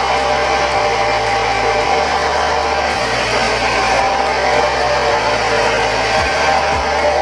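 Hair dryer blowing steadily, under background music with guitar and a bass line that changes note about once a second.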